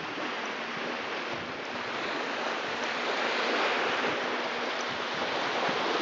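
Small waves breaking and washing onto a sandy shore, a steady surf hiss that swells a little in the middle.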